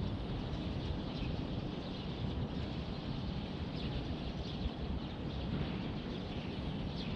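Quiet outdoor ambience: a steady low rumble of background noise with a few faint bird chirps.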